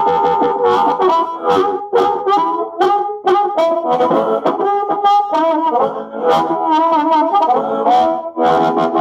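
Amplified blues harmonica played through a 1957 Silvertone 1430 Meteor, a 3-watt amp with a 6-inch speaker, with a Carbon Copy delay pedal. It plays a run of short phrases and held chords, some notes bending and wavering.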